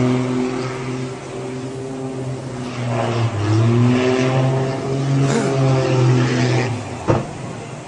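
Small propeller plane's piston engine droning steadily, its pitch shifting as the aircraft dives toward the sea. Near the end comes one sharp bang as it strikes the water, and the engine sound stops.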